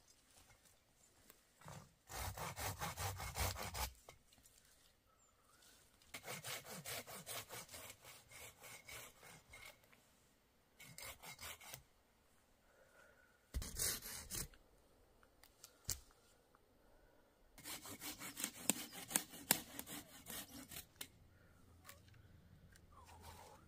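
Hand saw cutting wood in several bouts of quick back-and-forth strokes, with short pauses between bouts.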